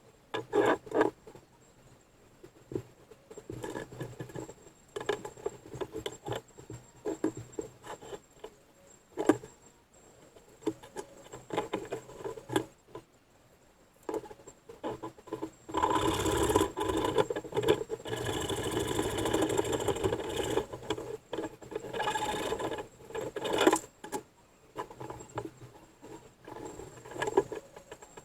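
Tool work on a boat build: scattered scraping, rubbing and knocks, with about seven seconds of continuous rasping a little past halfway through.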